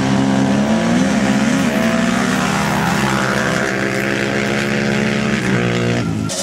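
Two sport ATV engines running at full throttle side by side in a drag race, their pitch rising and stepping as they shift up through the gears. The sound cuts off abruptly about six seconds in.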